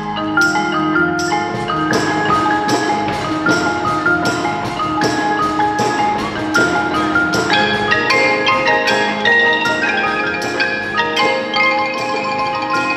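A percussion ensemble plays a tune on mallet instruments: quick, evenly paced struck notes that ring briefly over a steady beat.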